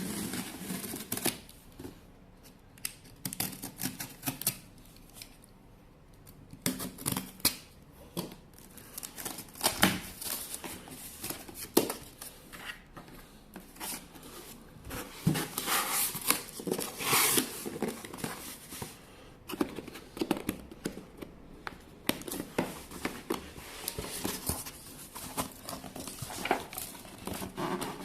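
A cardboard shipping box being opened by hand: packing tape cut and torn, flaps and packaging handled, giving an irregular run of snips, scrapes, rustles and knocks.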